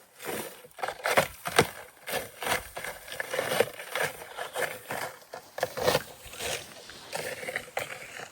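Footsteps through brush, an even walking rhythm of about two steps a second.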